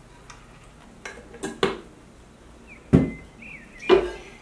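Kitchen clatter of cookware being handled: a frying pan and a glass oil jar knocked and set down on the cooktop and counter, a handful of separate clunks with the loudest about three seconds in.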